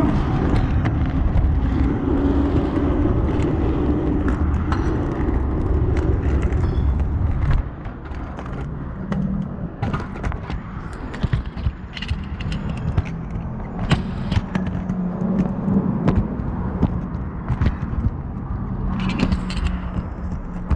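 Kick scooter rolling over sidewalk pavement, its wheels and frame rattling with frequent clicks and knocks, over the noise of street traffic. A heavy low rumble drops away about seven seconds in.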